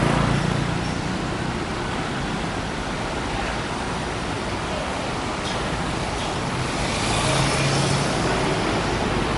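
Steady road traffic noise from cars on a busy city street, with an engine hum growing a little louder about two-thirds of the way in.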